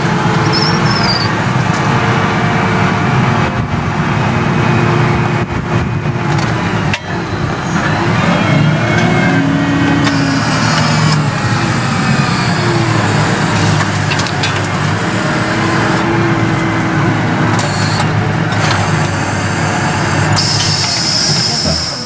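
Case Puma 260 tractor engine running under ploughing load, heard from inside the cab, a steady loud drone whose pitch dips and rises around the middle as the plough is lifted and turned.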